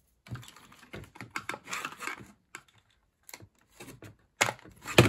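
Clicks, taps and light rattling of plastic parts being handled as the hand dryer's sensor circuit board and its plastic housing are worked loose, with two louder knocks near the end.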